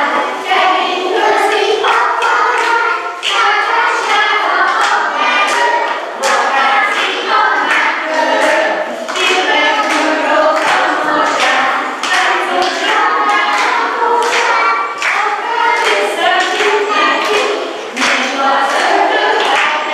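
A group of young children singing a song together in unison, with sharp taps or claps keeping a fairly steady beat under it.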